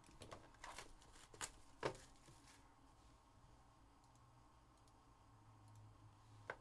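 Mostly near silence, with a few faint clicks and taps in the first two and a half seconds as cardboard trading-card hobby boxes are handled and moved on a tabletop.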